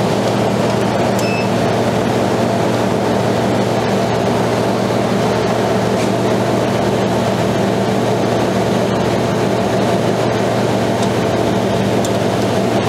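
Soft-serve ice cream machine running while soft serve is drawn from the dispensing handle into a cone: a steady, even mechanical hum with a low drone.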